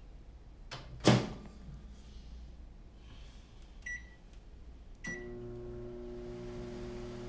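Microwave oven: its door shuts with a sharp bang about a second in, two short keypad beeps follow, and then the oven starts running with a steady hum.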